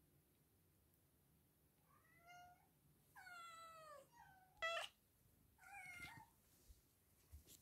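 Domestic cat meowing several times: a short meow, a longer one falling in pitch, then a short sharp louder one just under five seconds in, and a last meow about a second later.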